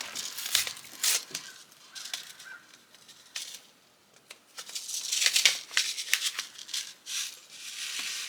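Light rattling, clicking and rustling of hands handling cabbage seeds and a plastic seed-starting tray, in short irregular bursts.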